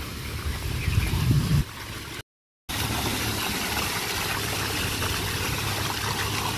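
Fountain water splashing steadily down a stone-covered mound into a pool, as an even rushing noise. For the first second and a half a low rumble is louder, and the sound drops out entirely for a moment about two seconds in.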